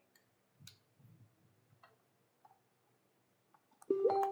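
A few faint clicks, then near the end a single loud ringing tone that starts sharply and dies away over about a second.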